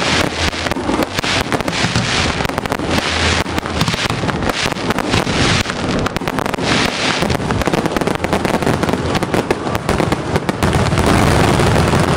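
Fireworks barrage: many aerial shells bursting in rapid, overlapping succession, a dense crackle of bangs. Near the end the bangs thin out into a steadier low rumble.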